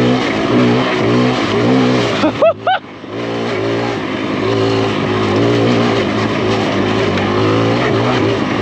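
Kawasaki KLX140RF dirt bike's single-cylinder four-stroke engine under hard riding, its pitch climbing and then dropping back again and again through the gears. About two and a half seconds in, the engine note breaks off for a moment, with a few quick high chirps, then picks up again.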